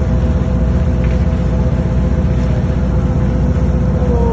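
A fishing boat under way: its engine running with a steady low rumble and a faint whine whose pitch dips slightly near the end, mixed with wind and water rushing past the hull.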